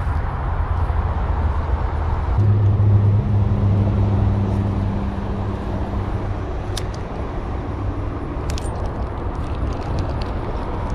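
Highway traffic passing, a steady low rumble with one vehicle's hum swelling and fading about two to six seconds in. A few light clicks come later.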